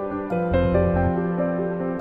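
Instrumental background music: a melody stepping from note to note over a held low note.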